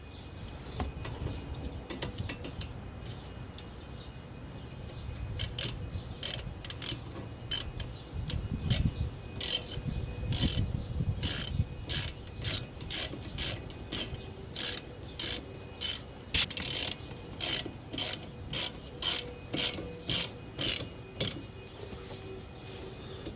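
Hand ratchet clicking as it runs a 12 mm brake caliper bolt in, in short even bursts about one and a half to two a second starting about six seconds in.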